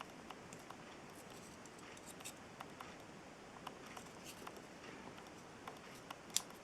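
Faint, scattered clicks and ticks of small plastic model-kit parts being handled and fitted together, with one sharper click near the end.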